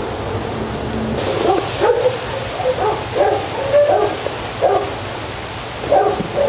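A dog barking in short, high yips, repeated in clusters from about a second and a half in, over a steady hiss.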